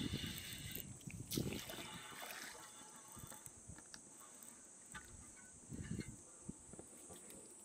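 Faint outdoor ambience: a steady high drone of insects, with light water sounds and scattered small clicks and soft knocks.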